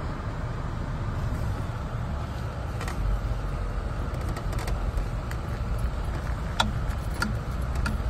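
Jeep driving slowly along a muddy dirt road, heard from inside the cab: a steady low rumble of engine and tyres that grows heavier about three seconds in. Scattered short clicks and knocks sound over it.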